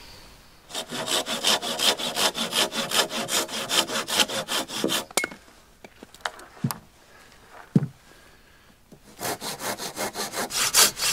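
Hand saw cutting through a dead branch with quick, even back-and-forth strokes. The sawing stops about five seconds in, leaving a few single knocks, and starts again near the end.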